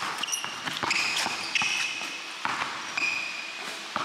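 Basketball dribbled hard on a hardwood gym floor in quick, uneven bounces, with several short high squeaks of sneakers on the hardwood between them.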